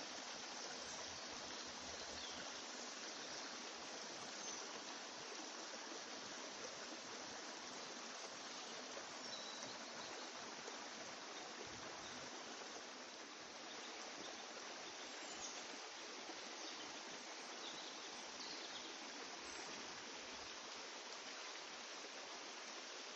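Steady, even hiss of background noise with a few faint light clicks.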